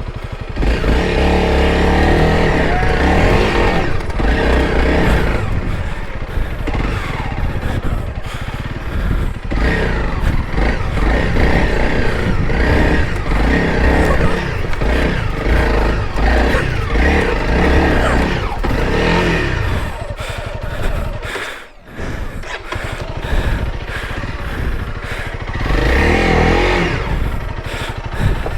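Honda CRF300L Rally's single-cylinder four-stroke engine revving under load on a rocky hill climb, the throttle opening and closing repeatedly. About three-quarters of the way through the engine drops away suddenly for a moment, then revs up again.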